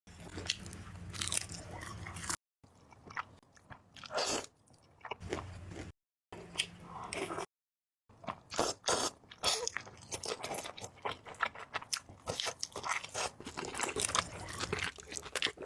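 Close-up eating sounds: wet chewing with sharp crunchy bites and crackles, cut off by a few brief silent gaps.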